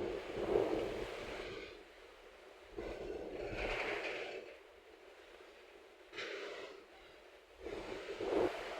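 Dust-storm wind gusting and buffeting the microphone, in four swells of rushing noise with quieter lulls between.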